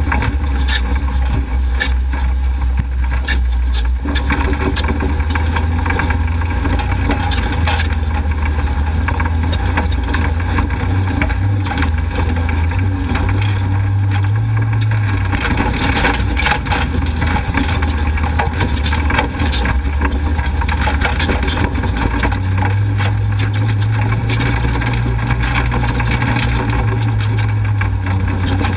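Off-road race vehicle's engine running hard on a rough dirt course, heard from on board over constant rattling and road noise. The engine note climbs twice, once around the middle and again near the end.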